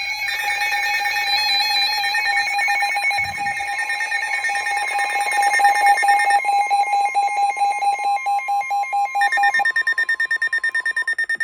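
Several NOAA weather radios sounding their alert alarms at once, announcing a severe thunderstorm warning: loud overlapping electronic alarm tones and pulsing beeps at different pitches. The beeping turns fast and choppy about nine seconds in, and all the alarms cut off abruptly together near the end.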